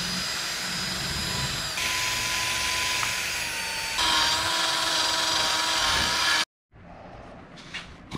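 Cordless drill spinning a wire wheel brush against the rusty end of a Jeep Cherokee's front axle shaft clamped in a vise, scouring off rust. The whine and grinding shift in pitch as pressure changes, then cut off suddenly about six seconds in; after that, only a few faint handling sounds.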